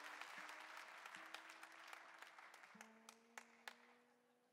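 Faint applause dying away, with a few last scattered claps near the end, while single acoustic guitar strings are plucked and left to ring as the guitar is tuned; one note is nudged up in pitch a little after a second in.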